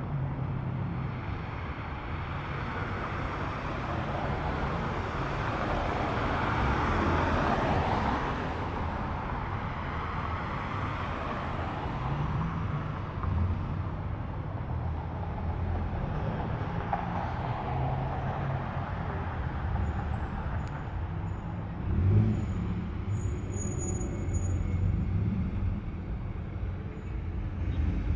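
Cars driving slowly past one after another, their engines and exhaust running steadily. One car swells louder about seven or eight seconds in, and a brief surge comes about 22 seconds in.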